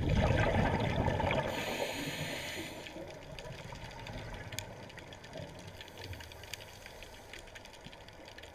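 Underwater: a scuba diver's exhalation through the regulator, a burst of bubbling lasting about three seconds, followed by a quieter steady underwater hiss with scattered faint clicks.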